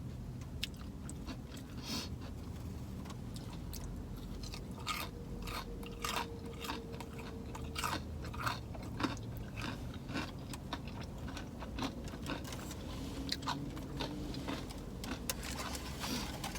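A person chewing and biting food close to the microphone, with many short, irregular mouth clicks and crunches.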